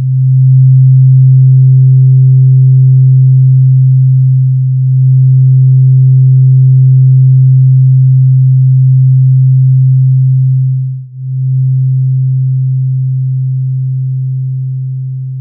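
Drone music: a single loud, low sustained tone with a faint higher overtone. It dips briefly about five seconds in and sharply near eleven seconds, then fades out toward the end.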